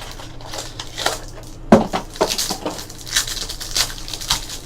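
Trading cards and pack wrappers being handled: crinkling, sliding and small clicks, with a sharp knock a little under two seconds in.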